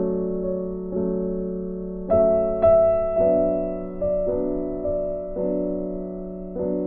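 Background music on a piano-like keyboard: slow, held chords, a new one struck about once a second.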